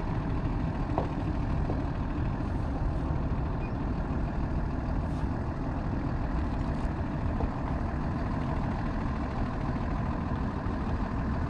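Large motorhome engine running steadily at low speed while the coach manoeuvres.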